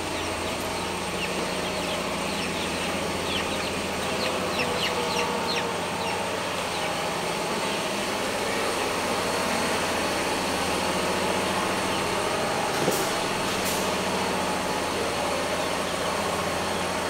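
Chickens and chicks, with quick high peeping chirps crowding the first several seconds, over a steady low mechanical hum.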